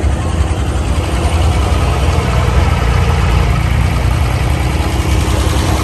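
Diesel engine of a wooden abra water taxi running steadily, heard from on board the boat.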